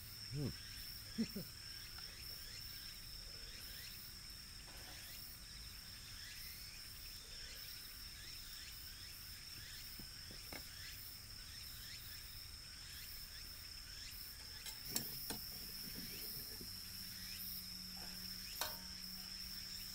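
Steady high-pitched insect trill, with a few short metallic clanks of cookware and tongs on a charcoal grill.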